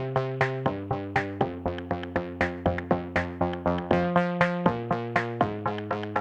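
Electronic background music: synthesizer chords over a steady drum-machine beat of about four hits a second.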